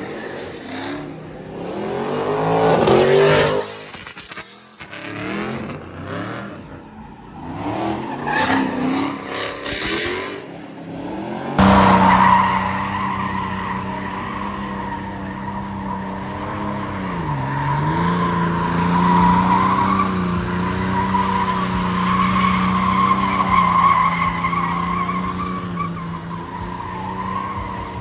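A car's engine revving up and down during burnouts. After a cut about twelve seconds in, a silver Mercedes sedan spins donuts: the engine is held at steady high revs with continuous tyre squeal, and the revs dip briefly partway through.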